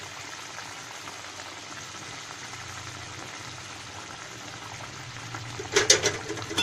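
Tomato-onion gravy bubbling steadily at the boil in a wok. Near the end come a few sharp knocks against the pan, the loudest sounds, as the fish pieces are put in.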